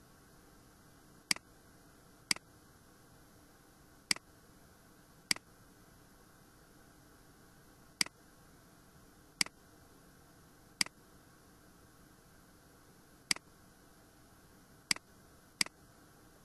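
Computer mouse clicking: ten single sharp clicks at irregular intervals, over a faint steady hiss.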